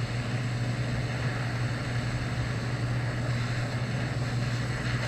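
Small butane torch lighter burning steadily with its gas turned up, heating a steel screw, over a constant low hum.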